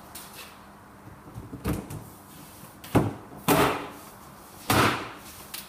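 Wooden top panel of a flat-pack wardrobe being set down on the carcass and slid into its connectors: four knocks, the last two drawn out as the panel slides home.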